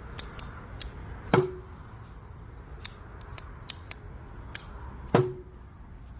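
Reate PL-X flipper knife being flicked open and closed: two sharp metallic snaps with a short ring as the blade locks open, about four seconds apart, with lighter clicks in between.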